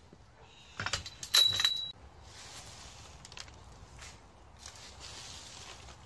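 Dry pine needles being handled and piled onto a stone fire pit as kindling: crisp rustling and crackling, loudest in the first two seconds, with a sharp clink that rings briefly about a second and a half in, then softer rustling.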